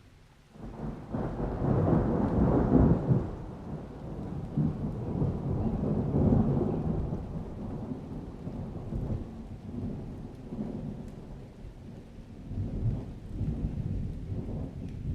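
Thunder rolling in a long, low rumble that rises out of near silence about half a second in, is loudest around two to three seconds, and swells again twice as it rolls on.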